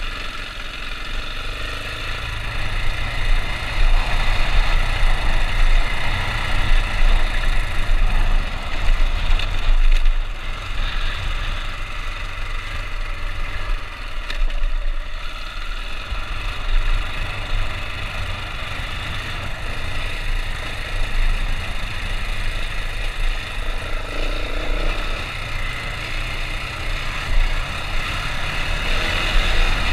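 2015 KTM 690 Enduro R's single-cylinder engine pulling the bike along a dirt trail, its note swelling and easing with the throttle, loudest early on and dropping back briefly around the middle.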